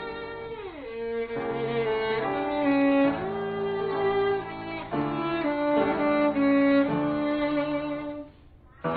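Background music on bowed strings, violin over lower strings, playing slow sustained notes with a downward slide about a second in. The music almost stops for a moment near the end.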